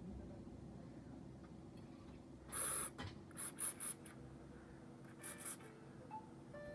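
Short scratching or scraping strokes on a hard surface, typical of repair work on a phone: one longer stroke, then a few quick ones and two more a little later, over a faint steady hum.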